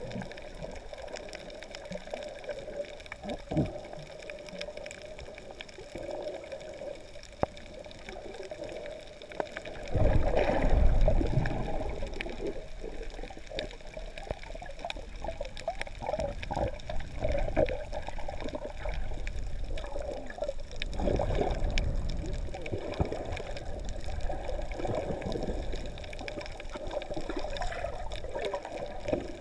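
Underwater water noise heard through a GoPro's waterproof housing: muffled sloshing and surge of moving sea water, with louder rumbling swells about ten seconds in and again about twenty seconds in.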